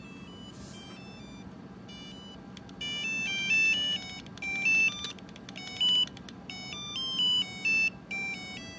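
Flipper Zero's built-in piezo speaker playing a tune from its Music Player app: a melody of short, buzzy electronic beep notes. It starts faintly and grows louder about three seconds in.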